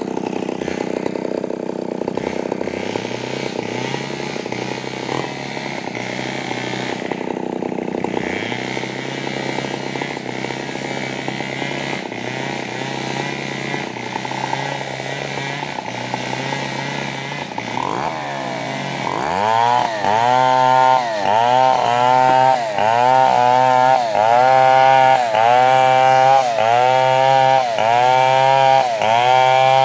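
Two-stroke chainsaw running steadily at low speed. About two-thirds of the way through it is opened up and runs louder at high speed, its pitch swelling and sagging about once a second.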